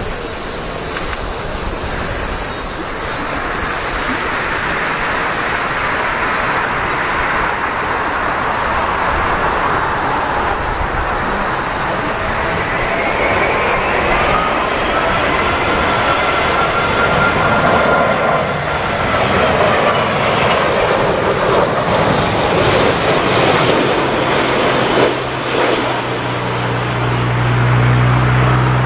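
Jet engines of an All Nippon Airways Boeing 787-9 (Rolls-Royce Trent 1000s) on final approach to land. There is a steady rush of engine noise, a whine that glides in pitch through the middle, and a low steady drone over the last few seconds as the airliner nears the runway.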